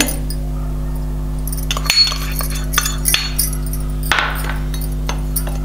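A steel spoon clinking a few times against a glass mixing bowl as turmeric powder is added to ground mustard, with a brief scrape about four seconds in, over a steady low hum.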